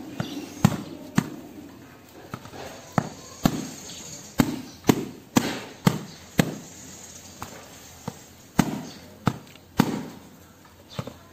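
Machete chopping the fibrous husk off a green coconut: a run of sharp, irregular blade strikes, about half a second apart, with a short lull past the middle.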